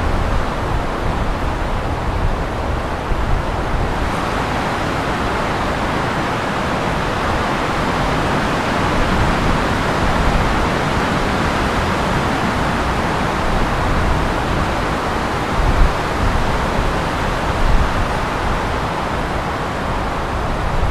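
Steady rushing wind, with low rumbling buffets on the microphone.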